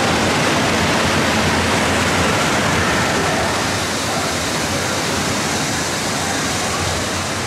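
Steady rush of running and falling water in an indoor water park hall, an even wash of noise that eases slightly about four seconds in.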